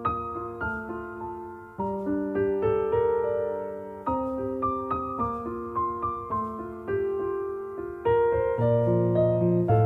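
Background music: solo piano playing a slow melody over chords, growing fuller and louder about eight seconds in.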